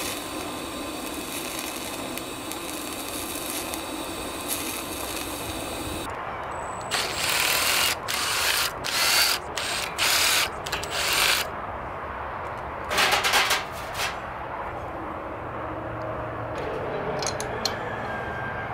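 TIG welder arc buzzing and hissing steadily for about six seconds, then stopping. After that a cordless impact driver runs in about five quick bursts, and once more a moment later, on the turbo's housing bolts.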